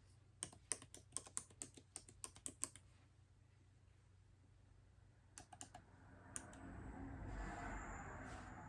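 Typing on a MacBook Air keyboard: a quick run of about a dozen keystrokes in the first three seconds, then a few more taps a couple of seconds later. A soft hushed noise swells near the end.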